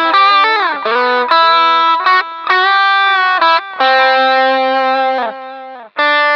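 Electric guitar played through a Shark The Gain Drive Booster pedal used alone as an overdrive, tone and gain knobs at the middle: a soft, chunky, Klon-style overdrive. Single-note lead lines with string bends near the start and long sustained notes, with a brief gap near the end before the next phrase.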